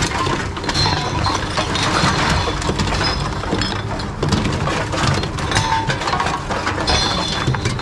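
TOMRA reverse vending machines taking in bottles and cans: the intake mechanism runs with a steady low rumble while containers clink and knock as they are fed through, one after another.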